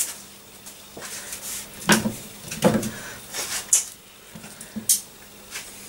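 A sharp kitchen knife cutting an onion in half on a wooden chopping board: a handful of separate knocks and clunks as the blade and onion hit the board, with quiet between them.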